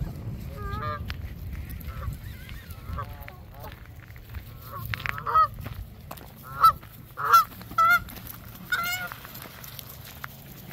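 Canada geese honking: a run of short, nasal honks, faint at first, then several loud, close honks in quick succession in the second half.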